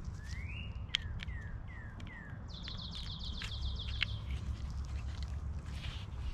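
Birds calling: a run of short, sliding whistled chirps, then a fast trill about two and a half seconds in. A steady low rumble and a few sharp clicks sit underneath.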